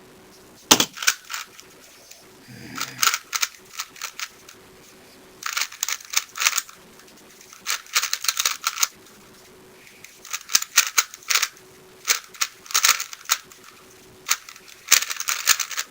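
Rubik's cube being turned fast during a timed speedsolve: quick runs of plastic clicking and clacking from the layers, in about seven bursts with short pauses between them.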